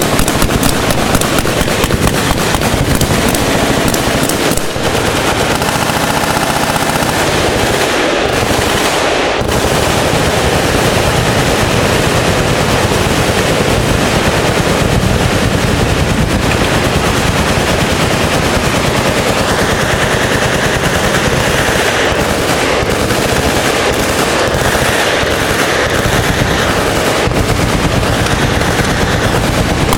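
Automatic gunfire from several machine guns at once, in continuous overlapping bursts that blend into a steady rattle, thinning only briefly a few times early on.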